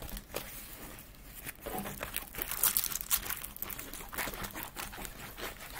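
Rolled diamond-painting canvas being rolled backwards by hand: rustling and crinkling, with a louder run of crisp crackles about two and a half to three seconds in.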